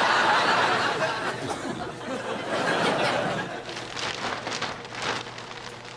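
Studio audience laughing: a wave of laughter that is loudest in the first second, swells again briefly around three seconds in, then dies away into scattered chuckles.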